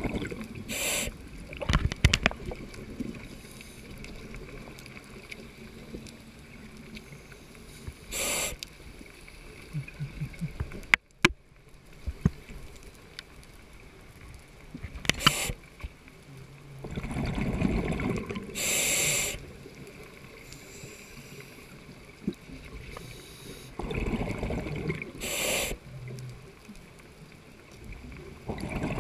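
Scuba diver breathing through a regulator underwater: short hissing inhales every several seconds, with rumbling bursts of exhaled bubbles.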